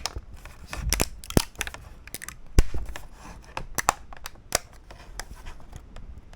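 3D-printed model cracking and popping loose from the printer's build plate as it is removed: a series of irregular sharp cracks and clicks, the loudest about two and a half seconds in.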